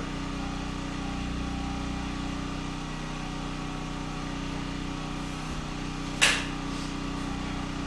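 Portable generator running at a steady pitch, with one sharp knock about six seconds in.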